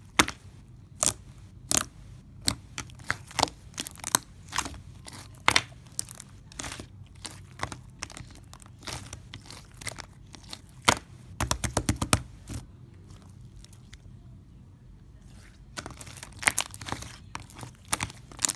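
Close-up crunching and crackling: a string of sharp, crisp clicks at irregular spacing, with a fast flurry of crackles about eleven seconds in and a quieter spell a couple of seconds later.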